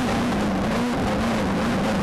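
VW Beetle-based off-road race car driven at speed over dirt, heard from inside the cabin: the engine runs hard, its pitch rising and falling slightly, over a constant rumble and rattle of the car on the rough surface.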